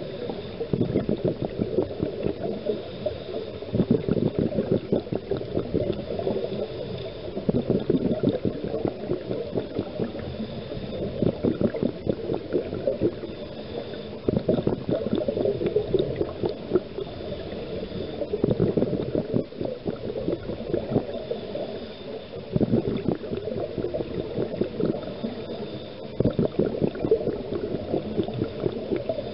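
Scuba diver's exhaust bubbles gurgling and crackling underwater, swelling in waves every three to four seconds with the breathing.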